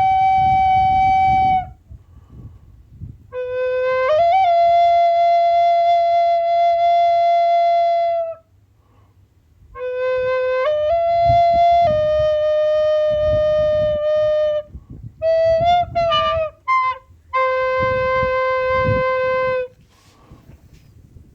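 A slow flute melody of long held notes in several phrases with short pauses between them, some notes sliding upward. A low rumbling noise runs beneath the notes.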